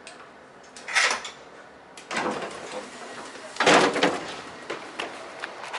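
Sliding doors of a suburban electric train working: three sudden noisy bangs and rushes about a second apart, the last the loudest, followed by a few light clicks.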